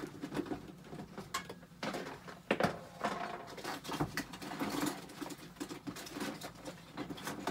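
Someone rummaging through small objects in search of a marker pen: irregular rattling, rustling and light clicks, with one louder knock about two and a half seconds in.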